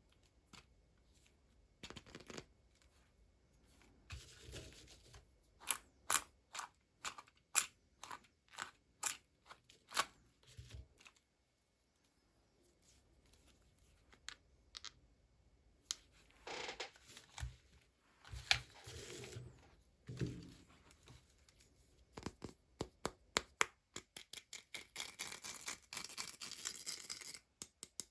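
Scissors snipping and doll packaging being cut and torn: runs of sharp snips and clicks, with rustling and tearing between them.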